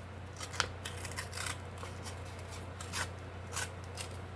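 A plastic casting cup being peeled and crinkled off a cured silicone plug, giving scattered crackles and clicks, over a low steady hum.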